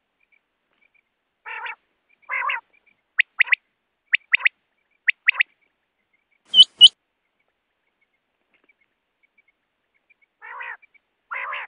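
Common quail (Coturnix coturnix) calling. Two low, raspy nasal notes are followed by three quick three-note 'wet-my-lips' phrases, then two very loud sharp notes about two-thirds through. After a pause, the raspy notes start the phrase again near the end.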